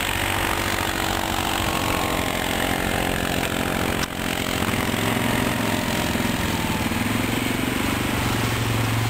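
ATV engine running steadily, its pitch rising a little and growing louder about halfway through.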